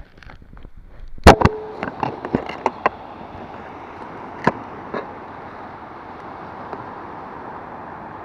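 A cluster of sharp knocks and clicks, the loudest about a second in and a few more up to halfway, then a steady rush of wind and surf on the microphone.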